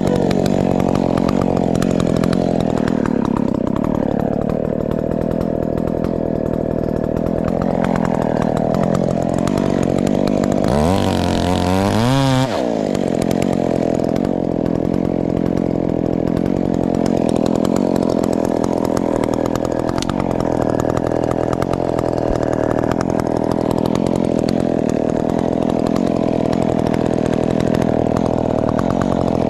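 Ported Husqvarna 372 XP two-stroke chainsaw running steadily at high revs, as when cutting into a fir tree. About eleven seconds in, its pitch drops and swings back up once.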